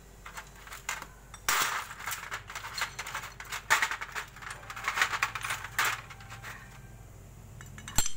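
Metal motorcycle clutch parts clinking and rattling against each other and a metal tray as they are picked up and handled: a run of clatter for several seconds, then one sharp click near the end.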